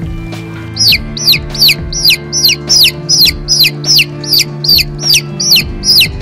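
Domestic chick peeping: a fast run of high, sharply falling peeps, about three a second, starting about a second in, over steady background music.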